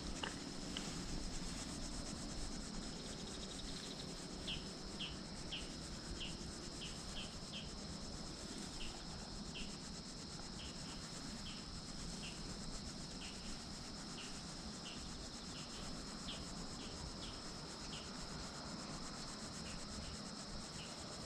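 Faint, steady high chirring of insects, with another insect's short chirps repeating about twice a second through the middle.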